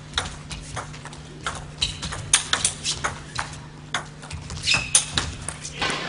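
Table tennis rally: the celluloid ball clicking sharply off the bats and the table at an irregular pace, two to three hits a second, with a couple of short squeaks along the way and a brief rush of noise near the end.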